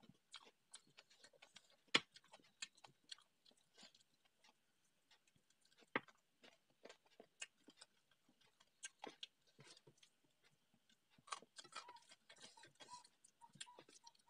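Close-up eating sounds: fingers squishing and mixing rice and curry on a steel plate, with wet chewing and lip-smacking. They come as a run of soft clicks and smacks, with two sharper clicks about two and six seconds in.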